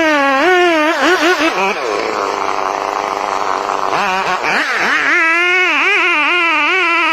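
Chainsaw running at high speed with its pitch wavering up and down. About two seconds in, it drops and turns rough and noisy for a couple of seconds, as if bogging in a cut, then rises back to the wavering whine.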